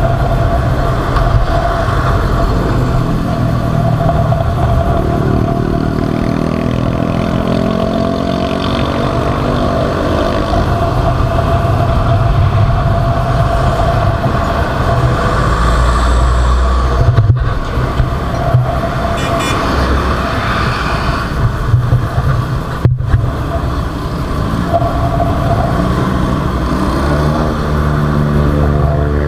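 Motorcycle engine running while riding on the road, its pitch rising and falling with speed and climbing near the end. The sound cuts out for an instant twice midway.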